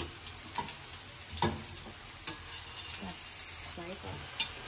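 Paratha frying in oil on a tawa, sizzling, with several clinks and scrapes of a steel spatula against the pan.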